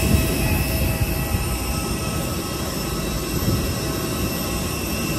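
Steady jet aircraft whine on an airport apron: several high, steady tones over a low rumble.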